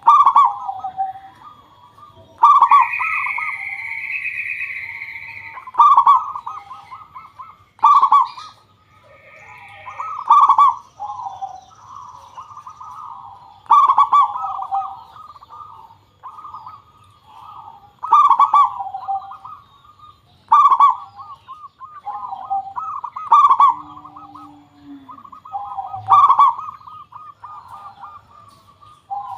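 Zebra doves (perkutut) singing: repeated rolling coos made of quick stuttering notes, with a new phrase every two to four seconds.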